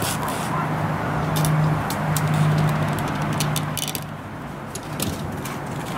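Steady low rumble of outdoor noise with a low hum that swells for a couple of seconds in the middle, and scattered light high ticks.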